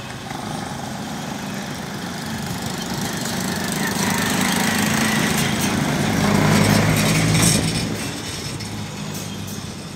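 A motor vehicle's engine passing close by: its steady note grows louder over a few seconds, is loudest a little past the middle, then fades away.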